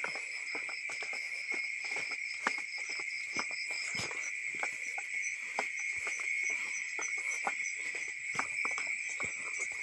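Night insect chorus of crickets: a steady high-pitched trill with a fainter, faster pulsing call above it. Irregular soft crackles and taps of footsteps through wet undergrowth run through it.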